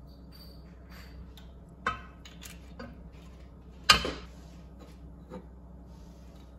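Kitchen handling sounds by a non-stick wok: a few short knocks as the oil bottle and utensils are set down, the loudest about four seconds in. A steady low hum runs underneath.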